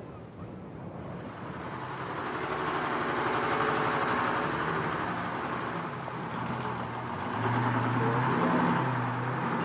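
Bus engine running with traffic noise, getting louder over the first few seconds.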